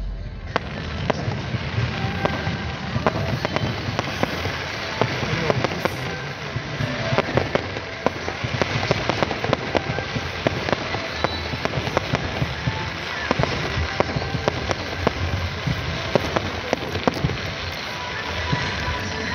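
Fireworks display going off: a dense, steady crackle of many small pops and bangs as shells rise and burst one after another.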